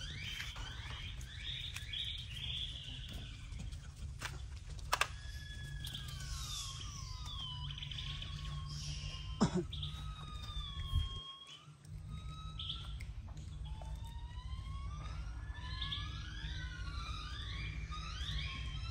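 Many high, whistling animal calls, each sliding up or down in pitch, overlapping in quick runs near the start and again near the end and sparser in between. A steady low rumble lies underneath, and a few sharp clicks sound near the middle.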